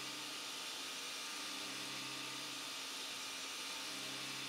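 Steady mechanical hiss and whir of machinery running, with a low hum that comes and goes twice in stretches of about a second.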